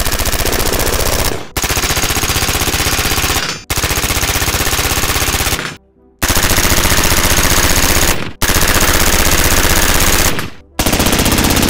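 Rapid gunfire from a PSA AR-15 rifle, strings of shots about two seconds long broken by short pauses, as the budget rifle is fired hard to burn out its barrel.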